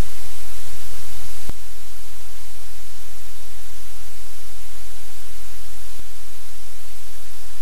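Steady, loud hiss over a low hum, with a few faint clicks. The level drops slightly about a second and a half in.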